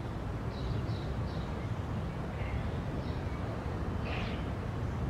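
Outdoor street ambience: a steady low rumble of distant traffic, with a few faint, short high chirps from small birds.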